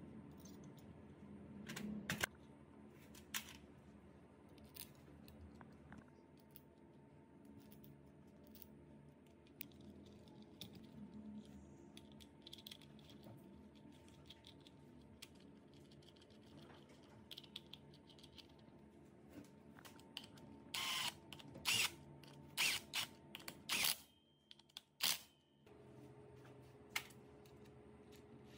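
Scattered sharp metal clicks and clinks of hand tools and parts while a Honda Super Cub C50's clutch pack is bolted together, with a quick run of louder clicks and knocks about three-quarters of the way through.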